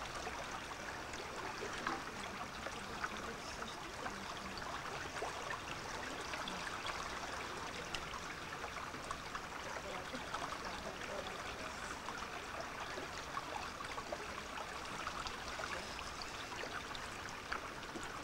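Steady babble and trickle of a small river's flowing water.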